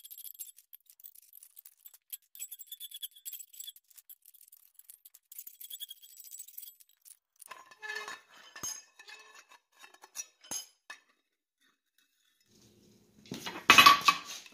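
A hand file rasping in repeated strokes along the edge of a forged steel skillet pan, followed by scattered metal clinks. Near the end, loud hammer blows on hot steel at the anvil.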